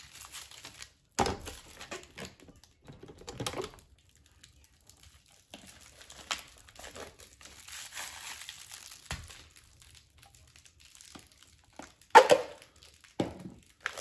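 Clear plastic protective film and packing wrap crinkling and rustling as it is peeled off and handled, with a few sharp knocks of handling, the loudest near the end.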